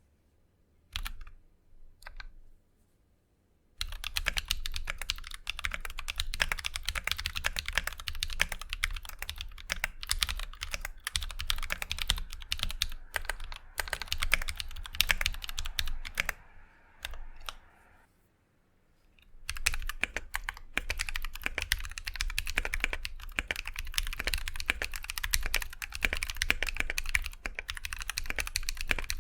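Typing on a mechanical keyboard with an aluminium TOFU65 case, a brass plate and lubed T1 tactile switches. First come a few single keystrokes, then fast steady typing with no silicone dampener in the case. After a pause of about a second and a half, the typing goes on with a homemade silicone dampener under the PCB.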